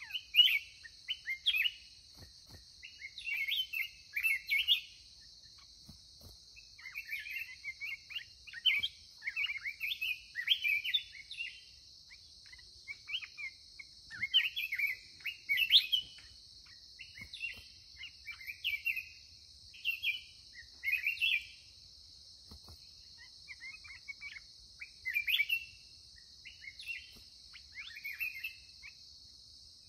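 Black-crested bulbuls singing short, warbled phrases, one every second or two, over a steady high insect drone.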